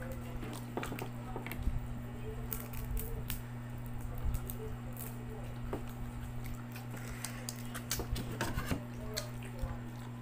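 Cooked crab shell being pried and broken apart by hand, with scattered crackles and clicks of shell and wet squishing of the meat. A steady low hum runs underneath.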